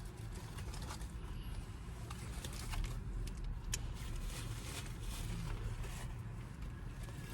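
Eating and handling food in wrappers: scattered soft rustles, clicks and taps over a steady low rumble.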